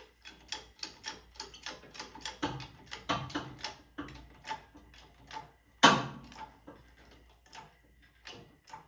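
Irregular metallic clicks and clanks, about two to three a second, with one loud metal bang about six seconds in.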